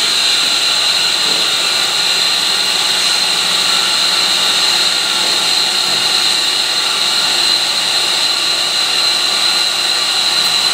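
Irrigation pump station's vertical electric pump motor running at low speed on its variable-frequency drive, a steady machine drone with a high-pitched whine. The pump is in fill mode, slowly ramping up as it builds pressure in the golf-course lines.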